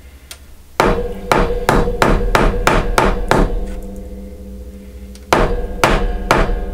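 Wooden mallet striking a wire ear wire on a small metal anvil to work-harden it. A quick run of about nine blows, roughly three a second, then a pause and four more near the end, each blow leaving a short metallic ring.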